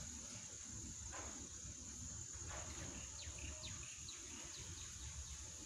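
Faint background ambience: a steady high-pitched drone with a low rumble beneath, and a few faint short chirps about three to four seconds in. No tool or engine sound is heard.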